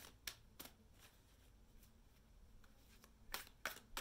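A deck of tarot-style oracle cards being shuffled by hand: soft, sharp card slaps, three in the first second, then a quiet gap, then three more near the end.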